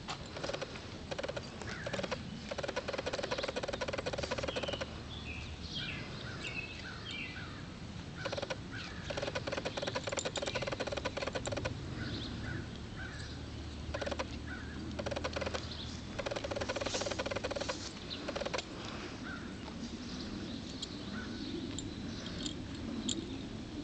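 Outdoor ambience with small birds chirping, an unidentified steady hum that comes and goes in spells of about two seconds, and a few short knocks.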